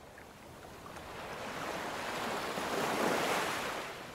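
An ocean wave washing in, a rushing swell that builds for about three seconds and then fades.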